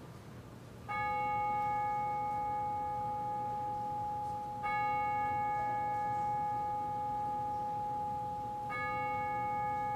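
A bell is struck three times, about four seconds apart. Each stroke sets off a clear ringing tone that carries on into the next.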